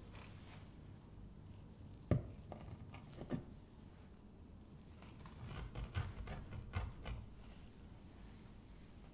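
A knife blade pressed down through soft scone dough, knocking on the wooden board beneath: one sharp knock about two seconds in, a lighter one a second later, and a run of soft taps and scrapes around six to seven seconds.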